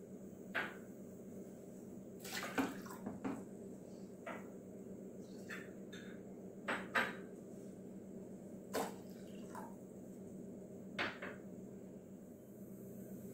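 Quiet kitchen background with a low steady hum, broken by about a dozen soft, irregularly spaced clicks and drip-like taps, the loudest about a third of the way in, past halfway and near the end.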